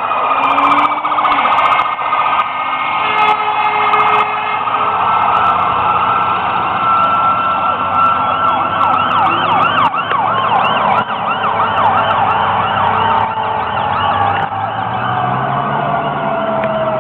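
Several emergency-vehicle sirens sound together over the rumble of the trucks. One siren holds a long wail at a steady pitch and then winds slowly down over the last several seconds. Around the middle, a rapid yelp from another siren joins in.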